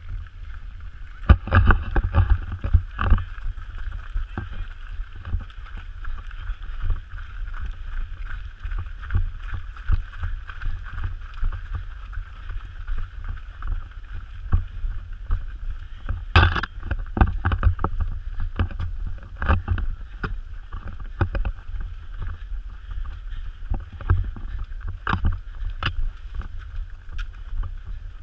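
Running footsteps thudding on a dirt forest trail, heard as muffled, irregular knocks from a camera jostled on a running body, over a steady low rumble of wind and movement on the microphone.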